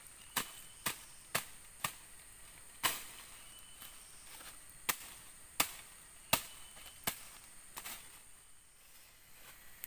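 Machete chopping at small plants and undergrowth at ground level: about ten sharp strikes, four in quick succession about half a second apart at the start, then more spaced out, stopping about eight seconds in.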